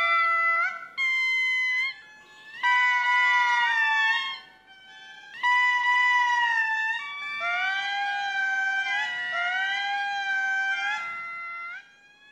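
Indri lemurs singing: long, loud wailing notes that are held and then slide down, in phrases broken by short pauses. In the second half several voices overlap in a chorus.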